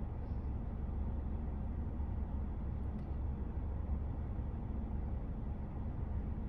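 Steady low rumble inside a VinFast Lux A sedan's cabin with the car running, no music playing.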